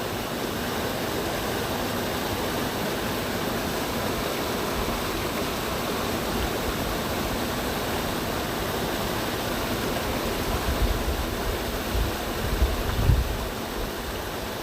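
Waterfall rushing steadily, an even hiss of falling water. A few low bumps and rumbles come about ten to thirteen seconds in.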